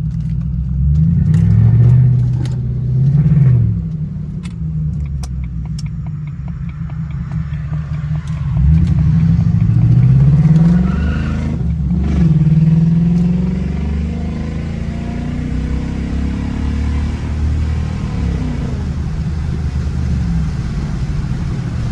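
Supercharged V8 of a Jaguar XJR pulling hard in two bursts, its pitch rising through each gear and dropping at the shifts, then settling to a steady cruise, heard from inside the cabin. It runs without sputtering; the owner judges the cylinder 4 misfire much improved after an injector swap.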